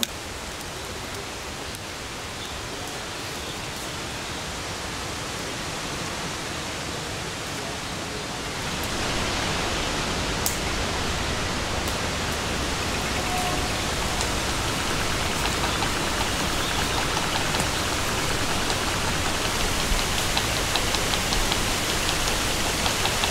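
A steady, even rushing hiss like rain or running water, slowly swelling and growing louder about nine seconds in.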